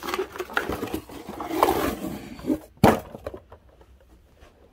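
A cardboard Funko Pop box with a plastic window being handled: rustling and crinkling, with a single sharp knock about three seconds in.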